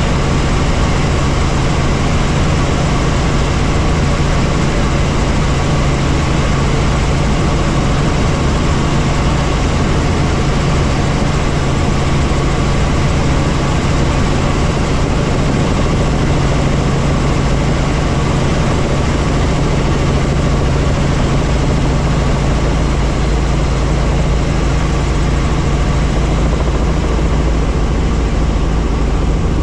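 Helicopter in flight: a loud, steady drone of engine and rotors with a constant low hum and a fainter higher tone, unchanging throughout.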